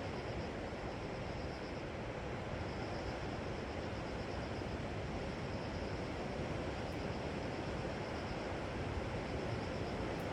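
Steady sea surf noise on a shore, even in level, with a faint high-pitched pulsing trill that comes and goes.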